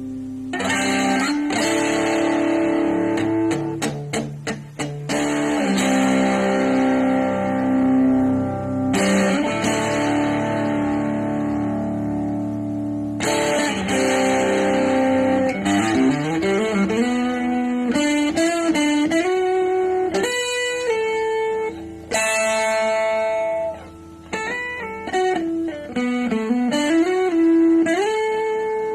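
Electric guitar played through a VOX Pathfinder 10 practice amp: strummed chords left to ring for about the first half, then a single-note lead line with slides up and down the neck.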